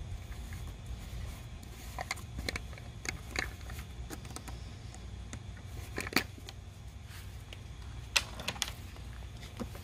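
Scattered small clicks and crinkles of a plastic oil jug being handled, its cap and foil seal being worked open, over a steady low hum.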